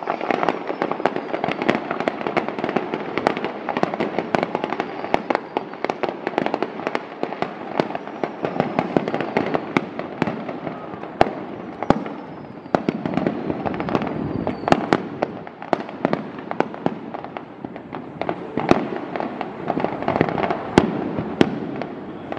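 Fireworks display at full intensity: a continuous barrage of sharp cracks and bangs, many a second, over a steady crackle.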